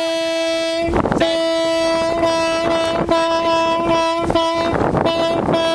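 A horn sounding one long steady note, held down for several seconds, with a few brief breaks.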